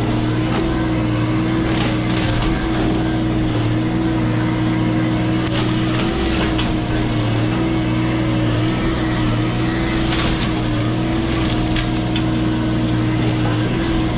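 Diesel engine and hydraulics of a CAT 304 mini excavator running steadily at working speed while a Blue Diamond brush-cutter head mulches, with short cracks and crunches of brush and wood scattered through.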